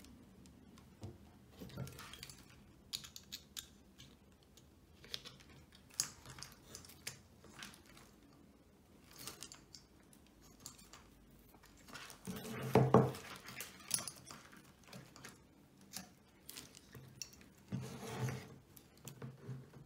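Small clicks, taps and rustling from hands working a loudspeaker crossover board: bending a resistor's wire legs, pushing it into the board and turning the board over. A longer, louder bout of handling noise comes about two-thirds of the way through, and another shortly before the end.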